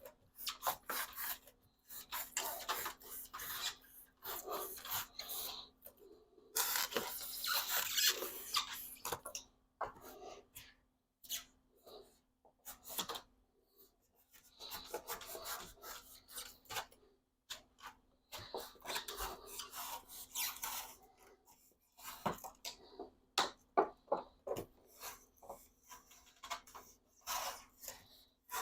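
A razor blade cutting through a foam sheet: scratchy cutting strokes that come in runs of a few seconds, with short pauses between them.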